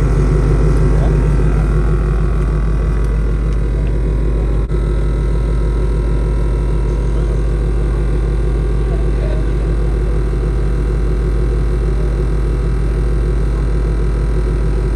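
Car engine idling steadily with a low rumble, its level dipping sharply for a moment about five seconds in.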